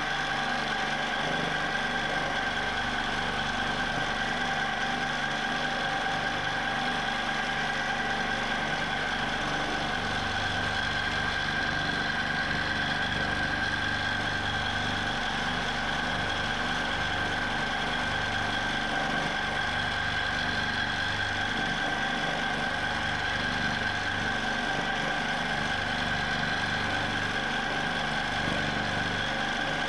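Q'nique 19 longarm quilting machine running steadily in constant (manual) mode, its motor giving a steady whine with a low hum that comes and goes.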